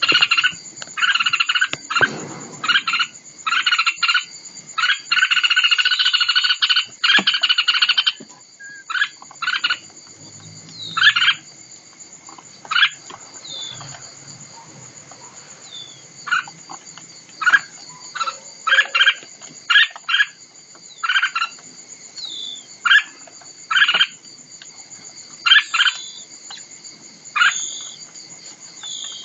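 Nestling songbirds begging: a run of short, harsh, rasping calls in quick succession for about eight seconds, then scattered brief chirps.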